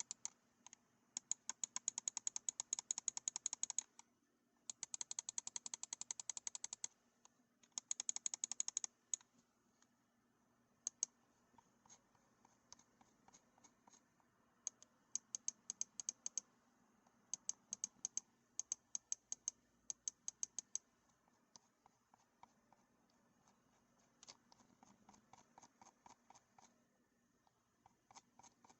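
Buttons of a Redragon WOKI M994 gaming mouse with Huano switches being clicked in quick runs of sharp clicks, several a second, broken by short pauses and a few single clicks. The clicks are softer near the end.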